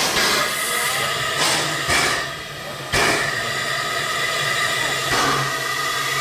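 Small 19th-century steam locomotives standing with steam up, hissing steadily over a low hum, with a few abrupt jumps in loudness.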